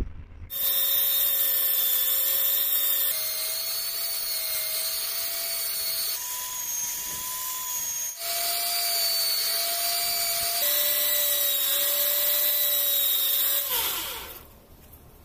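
Electric belt sander running with a steady motor whine while the edge of a leather sheath is sanded against the belt. About fourteen seconds in it is switched off and winds down, its whine falling.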